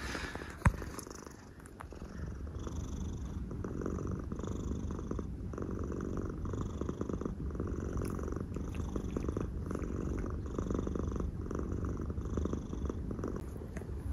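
A cat purring close to the microphone, with a soft rasp of a tongue licking fur repeating a little more than once a second as one cat grooms the other. A single sharp tap just under a second in.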